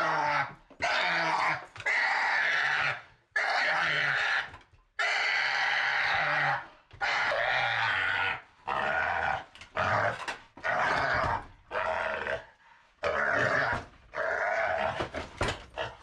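Domestic pig screeching while held for hoof trimming: loud, harsh screams about a second long each, one after another with short breaks, getting shorter and choppier near the end.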